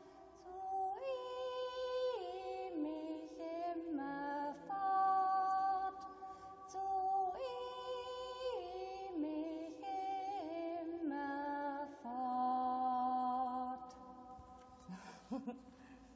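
Unaccompanied singing of an old German folk song in slow, held notes that step from one pitch to the next, echoing in a stone-domed hall so that each note rings on under the next. The singing ends about fourteen seconds in, and a few faint knocks follow as the echo dies away.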